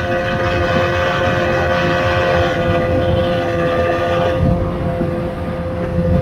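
Tohatsu M40C 40 hp two-stroke outboard running at high speed, a steady high whine with rushing wind and water spray over it. The rushing hiss softens about four seconds in.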